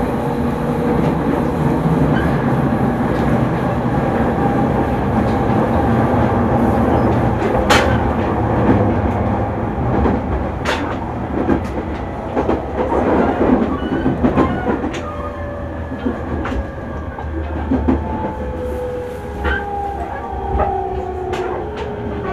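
JR 209 series electric train heard from inside the car while running: steady wheel and track rumble with scattered rail-joint clicks. Near the end the motor whine falls in pitch as the train slows for a station stop.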